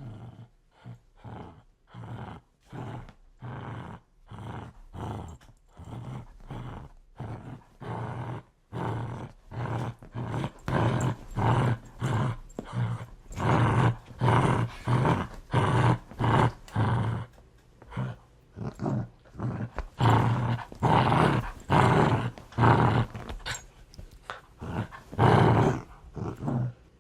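Large dog growling in a continuous run of short repeated pulses, about two a second, growing louder about ten seconds in.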